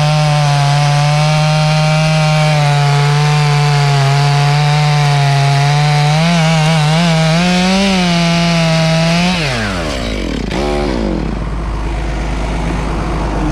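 Two-stroke chainsaw held at full throttle in a cut, its pitch dipping and wavering under load. About nine seconds in the throttle is released and the engine winds down, with a couple of quick pitch swoops just after, leaving a lower, rougher engine sound.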